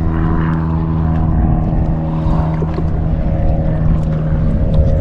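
An engine running steadily at a constant pitch, a low hum that holds throughout.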